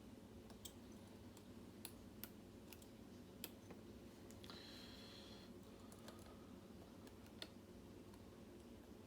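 Faint, scattered clicks of a lock pick working the pins of a pin-tumbler lock with a Kwikset keyway, a few irregular ticks several seconds apart over a quiet background.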